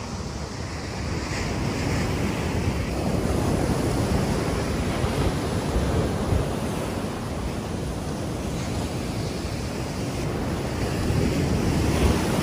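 Ocean surf breaking and washing up a sandy beach, a steady roar of waves that swells louder about three seconds in and again near the end, with wind buffeting the microphone.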